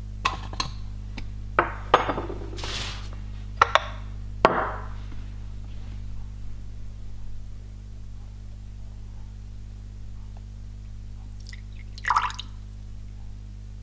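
Glass bowls clinking as they are set down and handled on a kitchen counter and scale, a few sharp chinks in the first few seconds. Near the end, water is briefly poured from a plastic measuring jug into a glass bowl on the scale.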